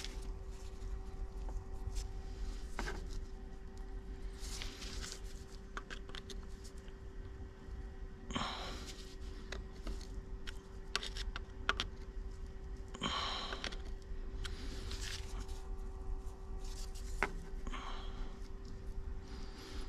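Hand tools clicking and scraping on metal as the injector control rack adjusting screws of a Detroit Diesel 2-71 are worked, with sharp clicks and a few short scraping rasps over a steady low hum.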